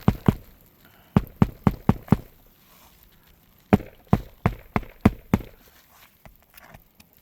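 Hammer driving roofing nails into a replacement shingle on the roof deck: three runs of quick, evenly spaced blows, about three a second, with short pauses between.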